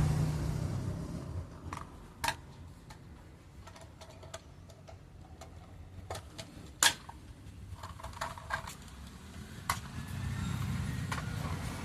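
Scattered light clicks and taps of a kitten playing on its own, with sharper knocks about two and seven seconds in.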